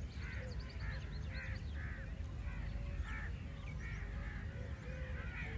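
A flock of birds calling over and over, several overlapping calls about every half second, with higher chirps among them, over a steady low rumble of wind.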